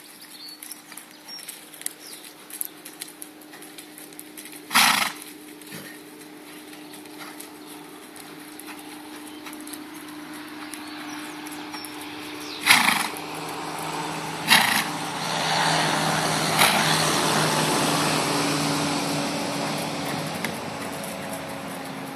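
A ridden horse moving around a rubber-chip arena: soft hoofbeats, with four short, loud snorts, one about five seconds in and three between thirteen and seventeen seconds. A steady low hum runs underneath, growing louder in the second half and then fading.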